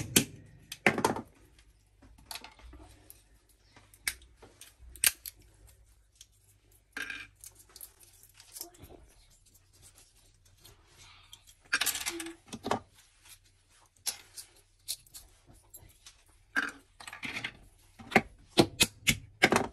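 Walnuts being cracked open with pliers and the shells picked apart by hand: scattered sharp cracks and snaps and small clicks of shell pieces, bunched in places, with quiet gaps between.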